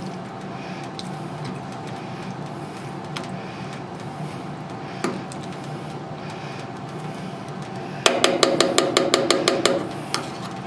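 A metal spoon working in an open tin can of chili, clicking now and then against the can, then about a dozen quick, sharp clinks of spoon on can over less than two seconds near the end. A steady low hum runs underneath.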